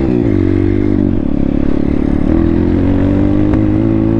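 Thumpstar 140cc pit bike's single-cylinder four-stroke engine running under throttle while riding. Its pitch dips and rises in about the first second, then holds steady.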